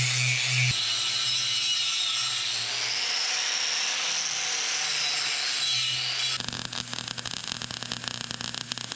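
A power tool working on metal, running steadily with its pitch drifting under load. About six seconds in it changes to a rapid, rattling chatter.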